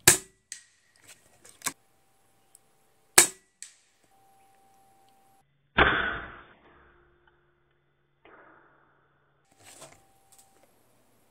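Daystate Red Wolf .177 HP PCP air rifle firing: two sharp cracks about three seconds apart, with lighter clicks between them, then a duller, muffled report about six seconds in.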